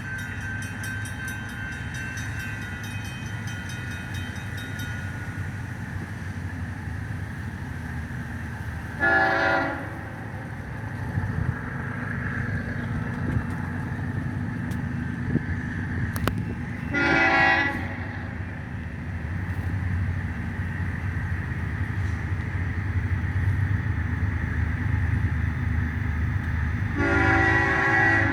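Freight train's diesel locomotives approaching slowly, their engine rumble growing louder, with three short blasts of the air horn about eight to ten seconds apart, the last near the end.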